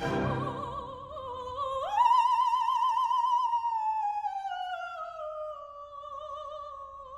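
A high operatic voice holding one long sung note with a wide vibrato, leaping up about an octave about two seconds in and then gliding slowly back down.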